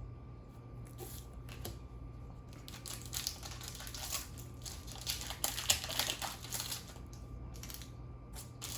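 Foil booster pack wrapper being torn open and crinkled: a run of crackling rustles, busiest through the middle.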